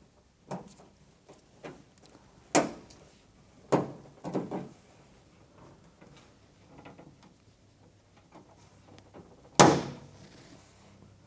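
Irregular knocks of the beltline weatherstrip's clips being pounded down into their slots in the steel truck door, the loudest about nine and a half seconds in, with quieter handling sounds between them.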